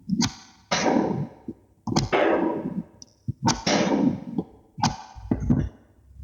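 Magnetic balls clicking together and clattering in a run of about five or six bursts, each a sharp snap followed by a short rattle that fades out.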